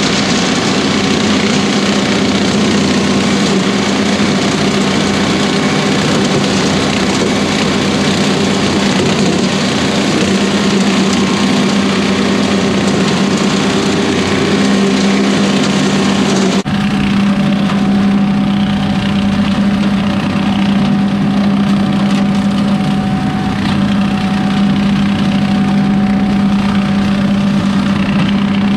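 John Deere 2038R compact tractor's three-cylinder diesel running steadily under load, driving a rotary cutter that is chopping down dry corn stalks. About two-thirds of the way in the sound changes abruptly: the hiss drops away and a steady hum stands out more clearly.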